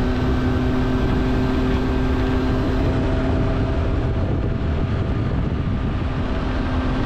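Yamaha Tracer 9 GT+'s inline three-cylinder engine cruising at steady highway speed, a constant drone under heavy wind rush.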